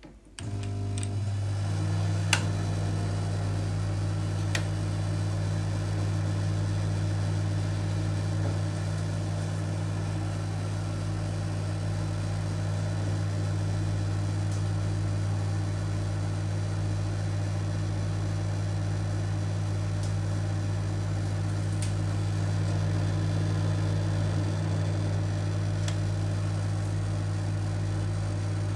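Older-model microwave oven switching on and running with a steady low hum. There is a sharp click about two seconds in, another a couple of seconds later, and a few faint ticks further on.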